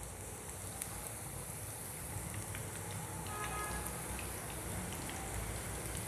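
Gram-flour-battered cabbage and onion pakoras deep-frying in hot oil: a steady sizzle with scattered small pops and crackles.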